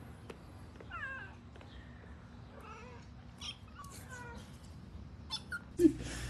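Cats meowing: several wavering mews that rise and fall in pitch, about a second in, near the middle and again about four seconds in, with a few light clicks. A brief louder sound comes near the end.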